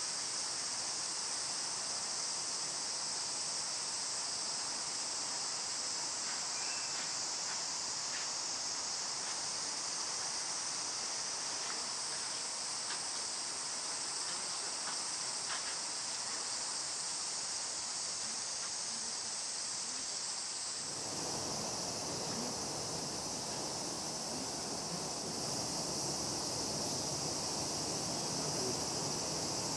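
Cicadas droning steadily in a high, unbroken chorus. A broader background hiss joins about two-thirds of the way through.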